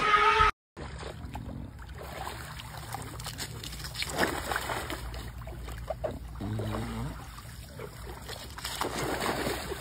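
Swimming-pool water sloshing and splashing as a man wades in it and lifts a bulldog at the edge. A short loud cry or voice cuts off abruptly right at the start.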